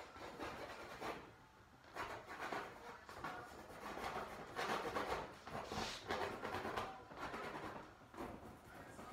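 Paintbrush scrubbing and rubbing on a canvas in irregular scratchy strokes, with small handling noises.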